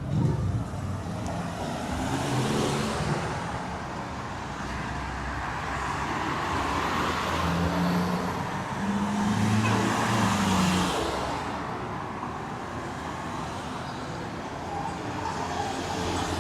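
City street traffic: cars passing with tyre and engine noise, swelling twice, about two seconds in and again around the middle, over a steady urban hum.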